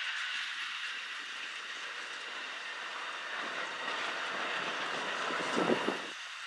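Amtrak passenger cars rolling past on the rails: a steady rumble and hiss of steel wheels on track, with a few clacks over rail joints near the end. The sound then drops away suddenly.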